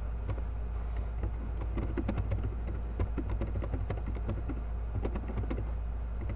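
Typing on a computer keyboard: an irregular run of quick key clicks for about five seconds, over a steady low hum.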